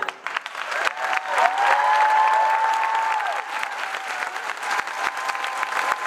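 Audience applauding in a dense patter of claps, with one voice holding a long cheer that drops off about three seconds in.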